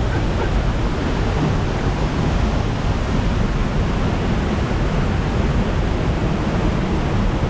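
Loud, steady rush of falling water from a large waterfall.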